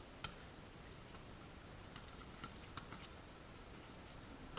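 Quiet outdoor volleyball court with a few faint, sharp taps of the ball, then near the end a sharper slap as the ball is struck for an overhand serve.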